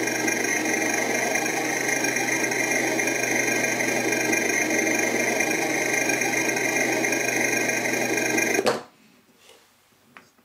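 Cheap electronic RC car engine sound module playing a synthesized engine sound through two small box speakers, steady and unchanging in pitch. It cuts off abruptly near the end, followed by a few faint handling clicks.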